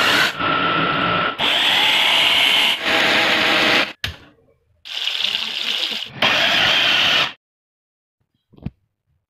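Kitchen mixer grinder running at full speed in several short bursts, each cut off abruptly. A sharp click comes about four seconds in as a spark lighter lights the gas burner, and a short click comes near the end.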